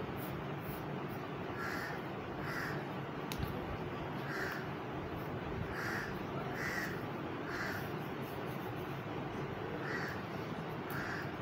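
Repeated bird calls, mostly in pairs spaced under a second apart, recurring every second or two over a steady background hiss.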